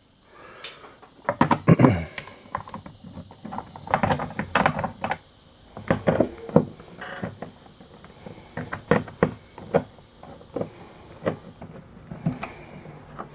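Irregular clicks, taps and knocks of hands working at the plastic interior trim of a Jeep XJ's door panel.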